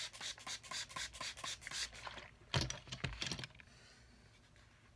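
Rapid scratching or rubbing strokes on leather, about five a second, for about two seconds, then a couple of louder knocks, the sound stopping about three and a half seconds in.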